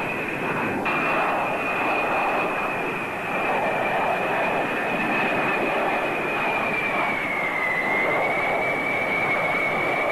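Jet aircraft engines running: a steady high whine over a broad rushing noise, the whine dipping slightly in pitch about three-quarters through and then holding.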